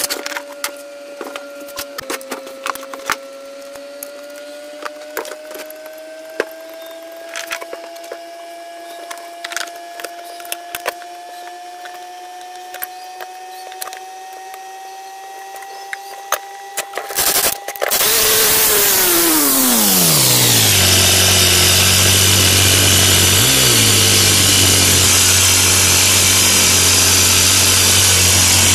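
Small metal parts and screws clicking and knocking as a four-stroke grass-trimmer engine is assembled by hand, over a faint steady hum. About two-thirds of the way in, a much louder machine noise starts suddenly, falls in pitch over a few seconds and settles into a steady loud running sound like a power tool.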